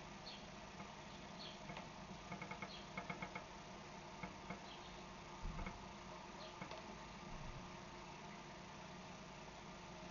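Faint underwater sound from a koi pond: a steady low hum with scattered small clicks, and a quick run of ticks about two to three seconds in.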